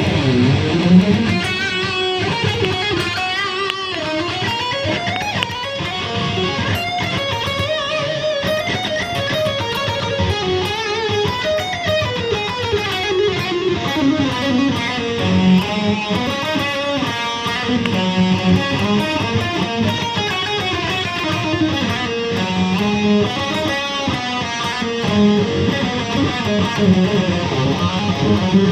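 Electric guitar played through a Zoom G1Xon multi-effects processor on a lead (solo) patch: melodic lead lines that climb and fall, with held notes.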